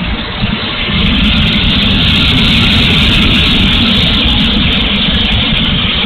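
Onboard sound of the 70 mm electric ducted fan on an E-flite F-16 RC jet in flight: a loud, steady rushing fan noise with a low rumble of wind buffeting the airframe and camera. It grows louder about a second in and eases slightly near the end.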